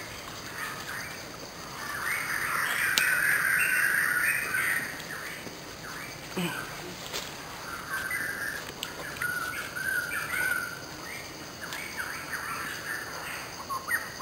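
Birds calling and chirping, loudest and densest about two to five seconds in.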